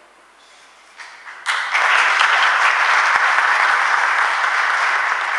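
A roomful of people applauding: the clapping breaks out about a second and a half in after a quiet moment and carries on steadily.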